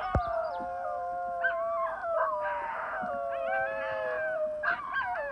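A pack of dingoes howling in chorus: several long overlapping howls that slide slowly down in pitch, broken now and then by short rising yelps and wavering calls. A sharp click comes just after the start.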